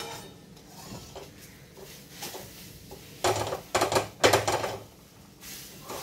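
Perforated steel ladle stirring and scraping semolina, sugar and banana around a metal kadhai. There is a sharp clink at the start and a run of louder scrapes between about three and five seconds in.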